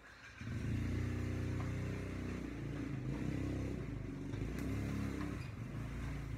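An engine running steadily at low speed, starting about half a second in, its pitch shifting slightly a few times.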